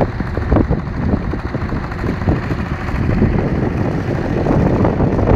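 Small boat engines running, with wind buffeting the microphone.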